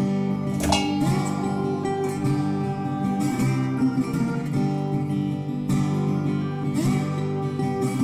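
Background music led by a plucked and strummed acoustic guitar.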